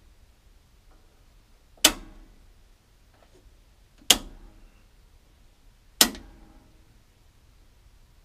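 Three sharp snaps of residential circuit breakers being switched by hand, about two seconds apart, each with a short metallic ring from the panel. A faint low hum runs underneath: the hum being traced breaker by breaker.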